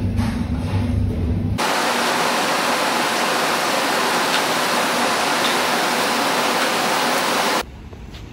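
A low steady rumble, then from about a second and a half in a loud, even hiss with no low end, which cuts off suddenly near the end and leaves a quieter rumble.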